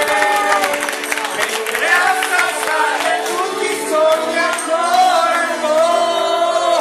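Amplified music with a man singing into a microphone.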